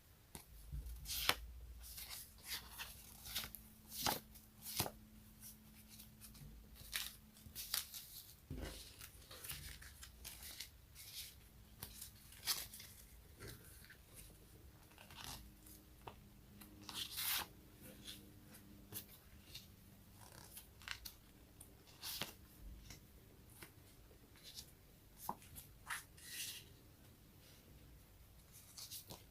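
Sticky peeling sounds: something tacky pressed down and pulled apart again and again, giving short, sharp crackling snaps at an irregular pace of about one or two a second.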